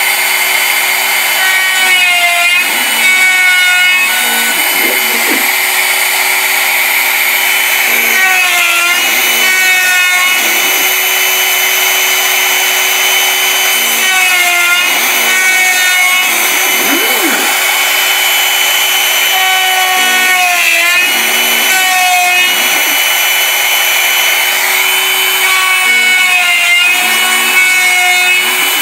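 Bosch Colt palm router on a CNC Mogul machine, spinning a quarter-inch two-flute bit as it mills pockets in bamboo plywood: a steady high whine whose pitch dips briefly about every six seconds as the bit takes load. Underneath, the machine's stepper motors hum, their tones switching on and off as the gantry moves.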